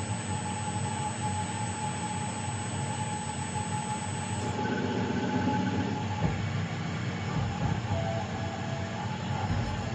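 A DIY CNC mill's drive motors running: a steady mechanical hum and rumble with a thin whine that stops about six seconds in, and a lower whine starting near eight seconds.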